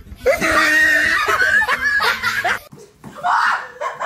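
High-pitched laughter, wavering and squealing for about two seconds before it cuts off abruptly. A shorter, rougher vocal burst follows near the end.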